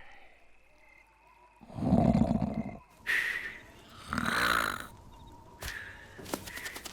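Cartoon snoring: two loud, rasping snores about two seconds apart, with a brief higher wheeze between them and a few short clicks near the end.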